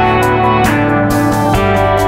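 Instrumental background music led by guitar, with a steady beat.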